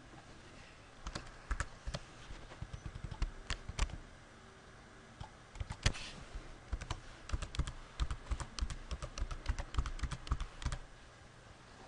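Typing on a computer keyboard: a short run of keystrokes, a pause of about a second, then a longer, denser run of keystrokes that stops near the end.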